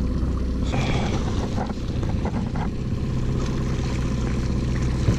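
Boat's outboard motor running steadily at trolling speed, with brief water splashing about a second in as a hooked kokanee is brought to the landing net.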